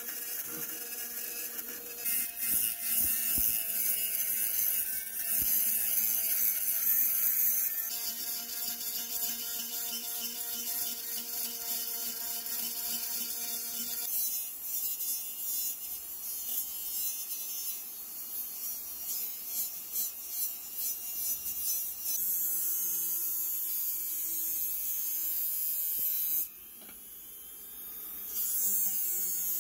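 Dremel-type rotary tool running at high speed, a small abrasive bit grinding on sheet metal, with a steady motor whine. The pitch steps up or down several times, and the sound drops away briefly near the end before the whine returns.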